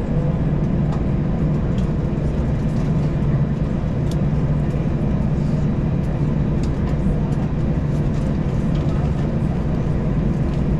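Steady drone inside an airliner cabin at the gate, a constant low hum with a few faint small clicks on top.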